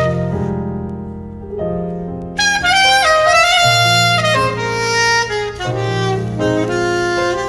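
Soprano saxophone playing a slow melody over sustained low backing chords. The saxophone comes in louder about two and a half seconds in, its notes stepping up and down.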